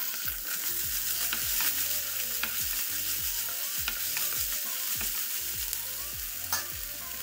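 Sliced onions and ginger-garlic paste sizzling in oil in a nonstick frying pan while a wooden spatula stirs them, with short scrapes and taps of the spatula against the pan now and then.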